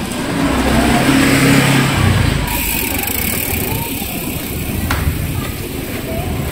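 Small motor scooter riding past close by at low speed. Its engine hum is loudest a second or two in, then fades away.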